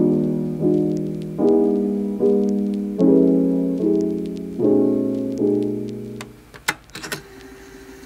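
Background piano music: soft chords struck about every second, fading out about six seconds in, followed by a few brief clicks.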